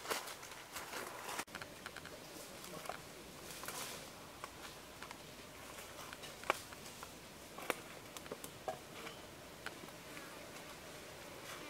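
Footsteps and movement on dry forest leaf litter and twigs: soft rustles with scattered sharp little clicks and snaps.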